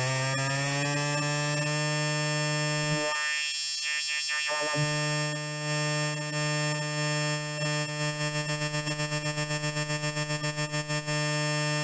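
Electronic dance music build-up played through a large PA sound system: a sustained synthesizer chord, its bass cut out for a moment about three seconds in, then a stuttering pulse that speeds up toward the end.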